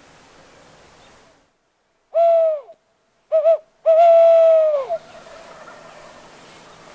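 Owl locator call, hooted to make gobblers answer: one loud hoot, two short quick hoots, then a long hoot that drops at the end.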